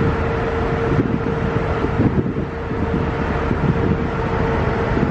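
Wind buffeting the microphone on a ferry's deck, over the low rumble of the ship and its churning wake, with a steady hum.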